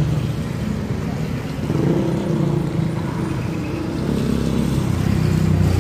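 Steady low rumble of an electric tricycle riding, heard from inside its passenger cabin.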